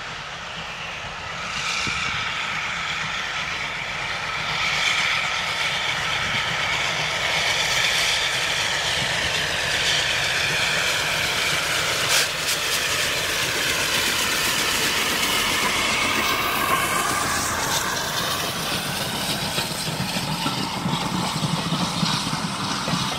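LSWR T3 class steam locomotive hauling a train of coaches, approaching and running past close by. The sound builds about two seconds in and stays loud as the coaches pass, with several high tones that sink in pitch as the train goes by.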